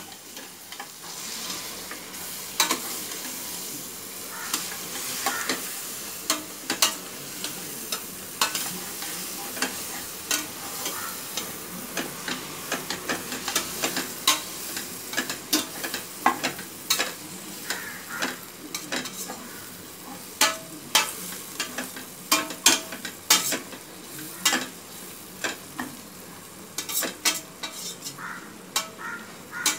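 Metal spatula stirring and scraping through mint leaves and tomato masala frying in oil in a pressure cooker, over a steady sizzle. Many sharp clicks of the blade against the pot, growing louder in the last third.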